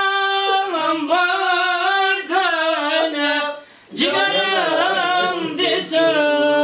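A single voice singing unaccompanied, in long held notes with ornamented turns, with a short breath pause a little past halfway.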